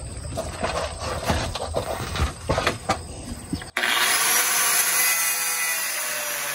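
Scattered knocks and clatter for a few seconds, then, after a sudden cut, an angle grinder's cutting disc grinding steadily through the rusty exhaust pipe, throwing sparks.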